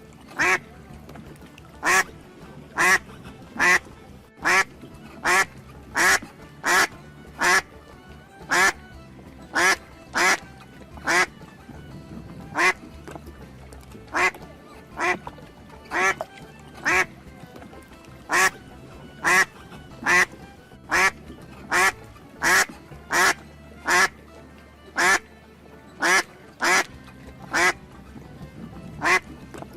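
Duck quacking over and over, short single quacks at about one or two a second, with music underneath.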